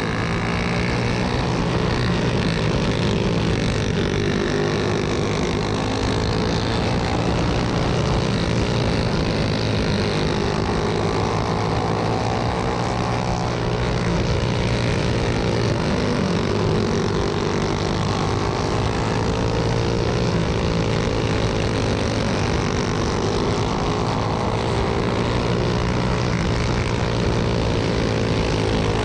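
Go-kart engine running hard during a race, heard from the kart itself. Its pitch rises and dips every few seconds as it accelerates and eases off around the track.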